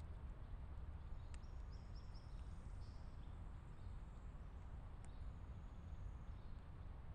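Faint woodland ambience through a trail camera's microphone: a steady low rumble and hiss, with faint high bird chirps, including a quick run of four or five notes a little over a second in, and two faint clicks.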